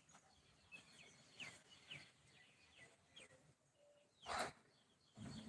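Faint, short high chirps from an animal, a few times over the stretch, and a brief louder noisy rush about four seconds in.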